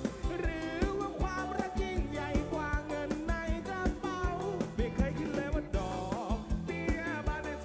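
Live band playing a song: a singer over drums and guitars, heard through a large concert PA from inside the crowd.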